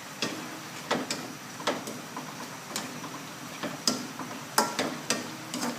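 A spatula knocking and scraping against a wok as a simmering stew is stirred, giving irregular sharp clicks about once or twice a second.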